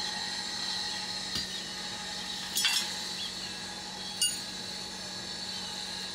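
Iron bars clinking as they are shifted in a blacksmith's coal forge fire: a light click, a cluster of clinks about two and a half seconds in, and one sharp ringing clink about four seconds in, over a steady hum and hiss.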